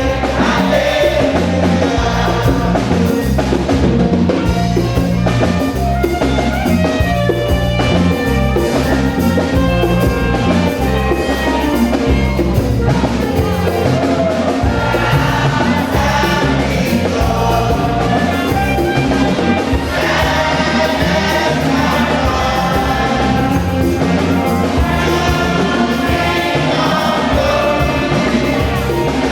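Gospel music in church: a choir singing over a band with drums and a strong bass line.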